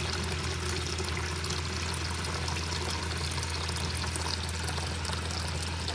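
Hot water running in a steady stream from a faucet into a plastic tub, over a steady low hum.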